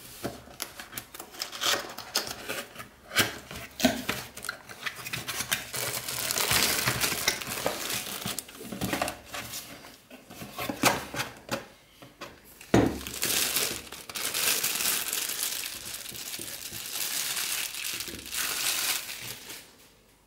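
Cardboard packaging opened and handled with short taps and scrapes, then clear plastic wrap crinkled and pulled off a stainless steel moka pot in long stretches of crackling. There is a sharp knock about two-thirds of the way in.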